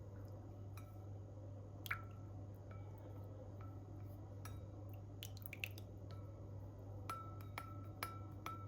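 Spoon clinking against a glass about a dozen times, each clink ringing briefly at the same pitch; the loudest comes about two seconds in, a quick cluster follows around five seconds, and four evenly spaced clinks come near the end.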